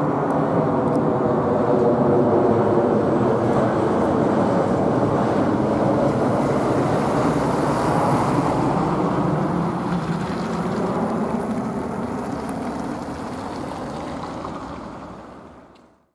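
Airbus A319-112's twin CFM56-5B turbofan engines as the airliner passes low overhead on landing approach with gear down: a steady jet engine rumble, loudest in the first few seconds, then slowly fading away and dying out near the end.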